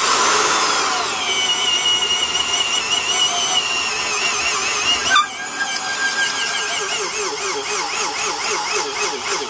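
Porter-Cable #372 half-inch drill's 3.6-amp motor driving a 1-inch auger bit into a wooden beam; its whine drops in pitch as the bit bites about a second in, then runs under load. About halfway through there is a sharp knock, after which the motor's pitch wavers up and down: it is bogging down but still pulling through.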